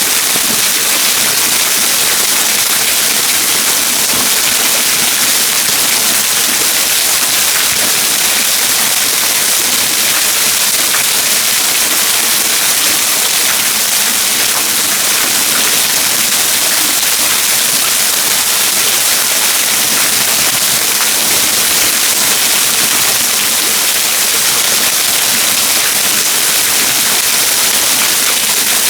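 Trettstein waterfall: falling water making a loud, steady, unbroken rush.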